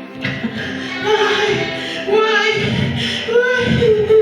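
Music with a woman's voice singing long held notes over a low pulsing accompaniment.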